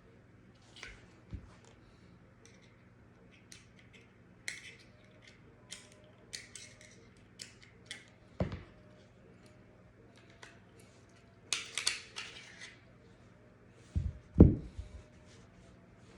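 Handling of a Smith & Wesson M&P 9mm pistol and its cleaning tools: scattered small clicks and taps, a short rattle about twelve seconds in, and a few dull knocks, the loudest near the end.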